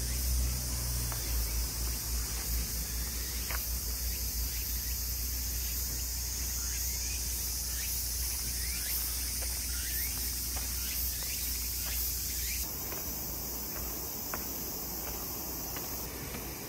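Summer cicadas buzzing in steady chorus from the forest trees. For about the first twelve seconds a low rumble of wind on the microphone sits under it, then it stops.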